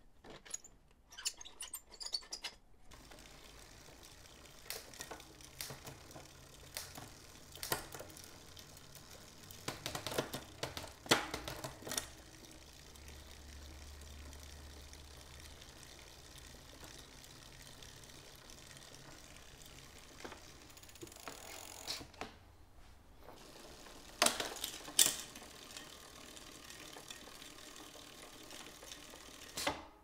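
Bicycle drivetrain being handled in a work stand: the chain running through the rear derailleur over its new ceramic-bearing jockey wheels, with scattered light mechanical clicks and rattles, the loudest clusters about ten seconds in and again near twenty-five seconds.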